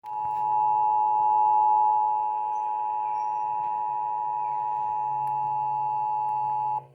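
Emergency Alert System attention signal: the two-tone alert (853 Hz and 960 Hz sounded together) held steady for nearly seven seconds, then cut off abruptly. It marks the start of a required monthly test.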